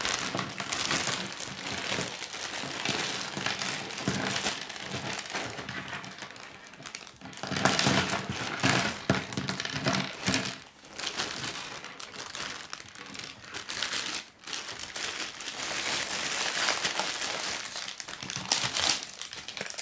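Clear plastic bag crinkling and rustling as it is handled and emptied, with chunky plastic Kid K'nex pieces clattering onto a wooden table; the rustle is densest and loudest about eight to ten seconds in.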